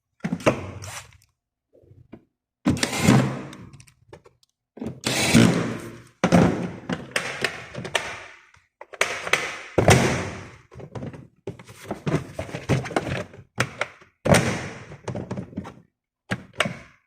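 A door and its lock being worked: a dozen or so separate thunks and clacks, each ringing briefly, spaced irregularly about a second apart.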